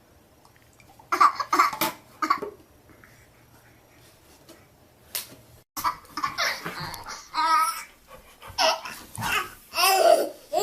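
Young child laughing in short bursts, then after a pause a longer run of laughter with a high squeal.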